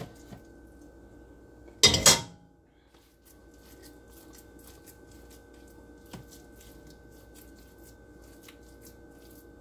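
A stainless steel pot set down on a gas stove's grate with one loud metal clunk about two seconds in. Faint quick scraping and ticking follows, over a steady faint hum.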